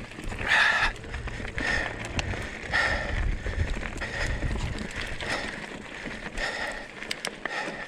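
Hardtail mountain bike riding over a rocky trail: tyres rumbling and rattling over rock, with noisy bursts about once a second.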